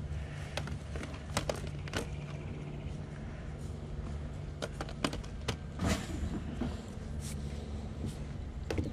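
Plastic DVD and video-game cases clicking and clacking against each other as they are handled, a dozen or so short sharp clicks scattered irregularly over a low steady hum.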